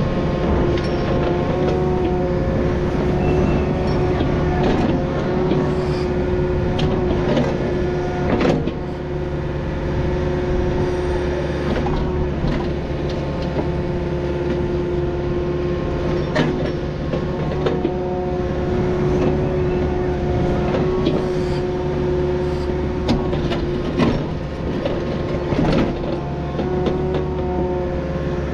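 Takeuchi excavator's diesel engine running steadily under load, with a whine that comes and goes, while the bucket digs a ditch, knocking and scraping on soil and rock every few seconds.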